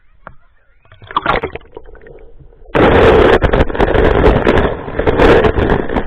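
A little splashing and handling, then about three seconds in a sudden, loud, muffled rushing of flowing stream water heard with the microphone underwater.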